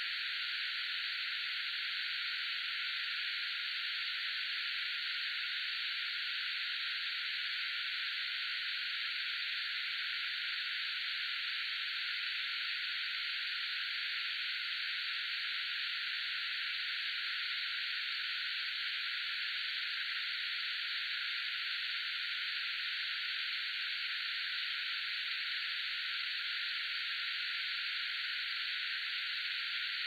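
Radio static: a steady, even hiss with no tuning sweeps, voices or crackles, thin-sounding because it holds only the middle-to-upper range with no low end.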